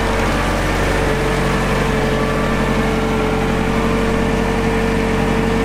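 An engine idling steadily: a constant whine over an even low hum, with no change in speed.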